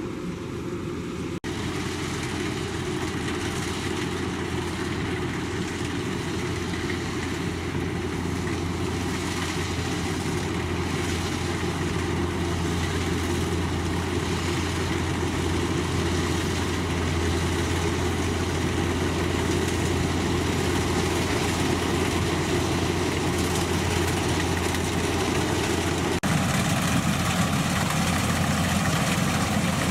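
Combine harvester running steadily, its engine and machinery making a continuous drone. The sound changes abruptly about a second in and again near the end.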